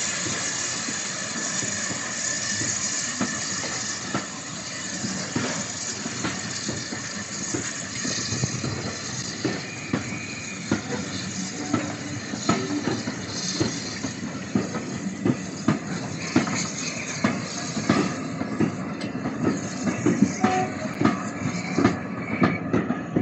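Steam-hauled passenger train pulling out past close by: a hiss of steam at first, then the coaches' wheels clicking over the rail joints, the clicks coming faster and louder toward the end as the train gathers speed.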